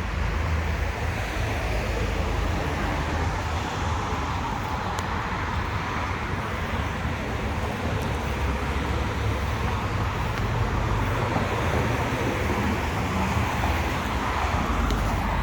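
Steady road traffic noise from a busy street, a continuous wash of passing cars.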